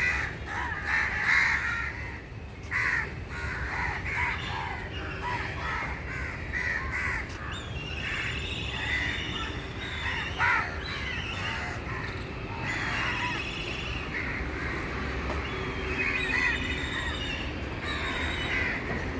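Crows cawing again and again, mixed with the calls of other birds, over a steady low background rumble.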